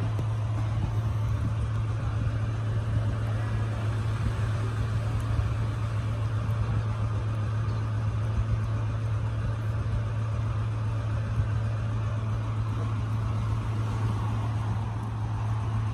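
Steady low hum of a running engine, with a faint even hiss above it.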